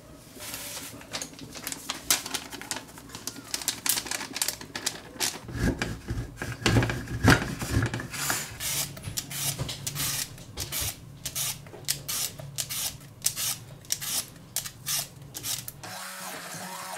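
Block of hard cheese rubbed on a round stainless-steel grater: a long run of rough scraping strokes, about two or three a second, with a few heavier knocks. Near the end a hand blender starts with a steady hum.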